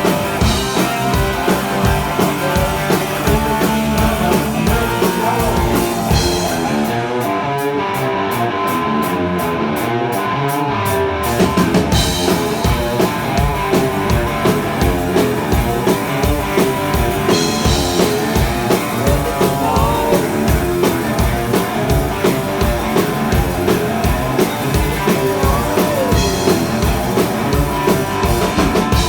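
A rock band playing live: electric guitar over a steady drum-kit beat. The drums drop out about seven seconds in and come back in about four seconds later.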